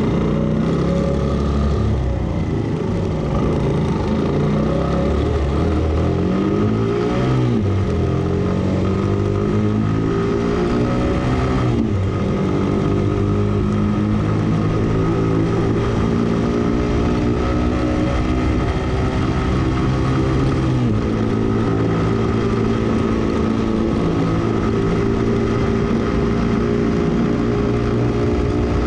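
Suzuki GN125H's air-cooled single-cylinder four-stroke engine pulling away and riding along. Its pitch climbs and drops at a gear change twice in the first half, then holds fairly steady at cruising speed, with a steady rush of wind and road noise.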